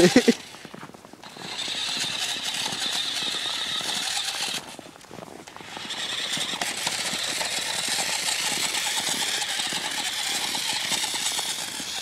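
Toy remote-control ATV's small electric motor and gearbox whining and rattling as it drives over snow. It cuts out twice, about half a second in and again at about four and a half seconds, and picks up again each time.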